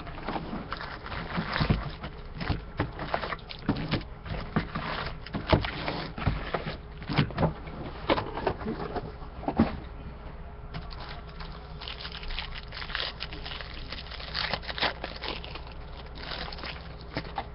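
A trading-card hobby box and its foil packs being opened by hand: irregular rustling, crinkling and tearing of cardboard and wrappers with scattered clicks, busiest in the first ten seconds and lighter after.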